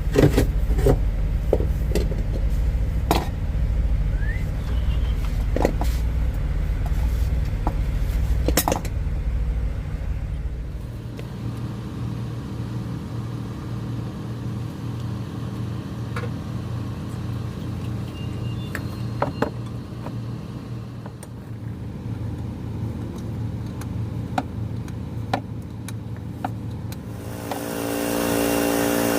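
A truck engine idles steadily under scattered sharp metallic clicks and knocks of tool work. About eleven seconds in, the deepest rumble drops away and a different engine hum carries on. Near the end, a louder engine note comes in.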